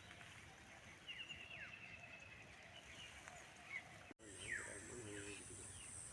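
Faint bird calls: short chirps and quick downward-sliding notes, one run of rapid chirps about a second in. After a brief dropout about four seconds in, a steady high insect buzz comes in under the calls.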